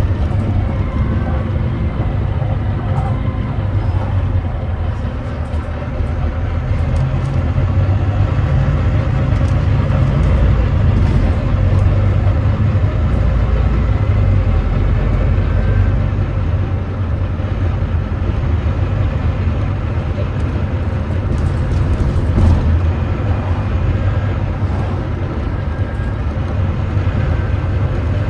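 The Volvo D9B 9.3-litre diesel engine of a Volvo B9TL double-decker bus running under way with its ZF Ecolife six-speed automatic gearbox, heard from on board as a steady low drone. It gets somewhat louder for a few seconds in the middle. The uploader tags this engine as misfiring.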